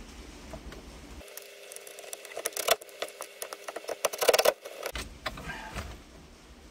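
Cordless drill/driver running screws into a plastic steering column shroud, in two short bursts with clicking and rattling, the second burst longer.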